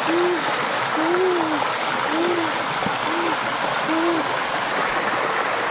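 A stream running over rocks, with a low hooting animal call repeated five times, about once a second, each note rising and falling in pitch.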